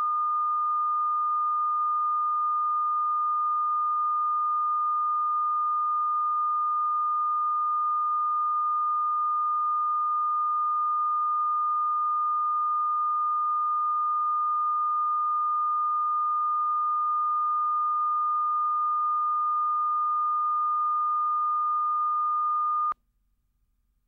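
Steady reference tone played with SMPTE colour bars at the head of a video tape: one unbroken pure tone at about 1 kHz that cuts off suddenly near the end.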